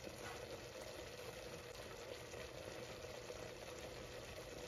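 Cream sauce simmering in a skillet under a glass lid: a faint, steady bubbling.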